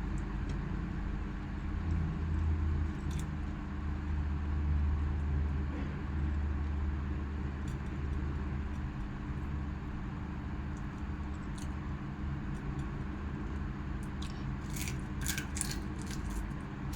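Steady low mechanical hum with a few sharp clicks and clinks near the end.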